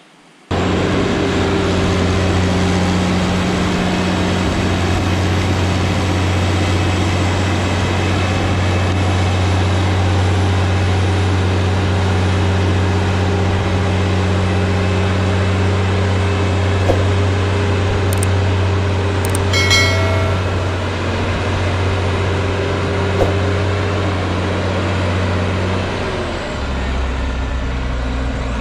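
Heavy farm machine's engine running at a steady speed, with a deep, even hum. It cuts in suddenly at the start and settles to a lower pitch near the end.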